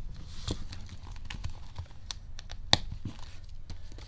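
A cash-envelope binder and its plastic zipper pouches being handled, rustling and crinkling with scattered light clicks. One sharp click comes a little past halfway through.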